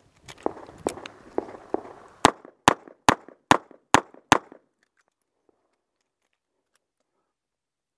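Six revolver shots fired in quick succession, about 0.4 s apart, starting a little over two seconds in. Before them come four softer knocks about half a second apart.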